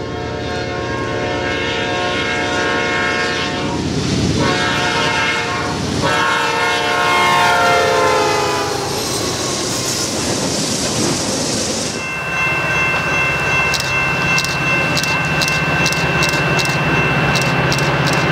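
Freight locomotive's air horn sounding in long blasts at a grade crossing, its pitch dropping as the train passes, followed by rushing wheel noise. After a cut, an approaching commuter train with steady high tones and a run of sharp clicks on the rails.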